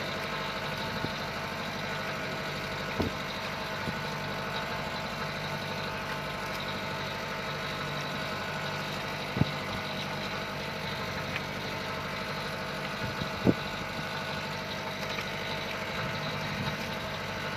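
Small fishing boat's engine running steadily at low revs, with a few short knocks on the hull or deck about three, nine and thirteen seconds in.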